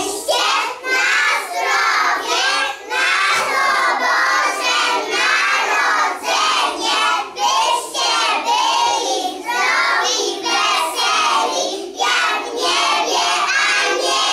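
A group of young children singing together in unison, without clear instrumental accompaniment.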